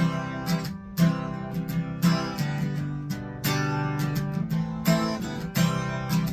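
Acoustic guitar strumming chords in a steady rhythm, an instrumental gap in a blues song, with a sharp strum attack roughly once a second.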